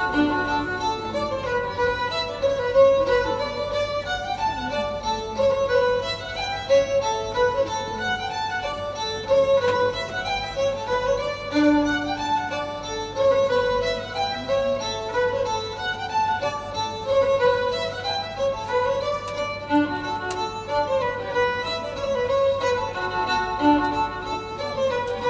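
Instrumental background music, a busy melody of short pitched notes repeating in a steady pattern.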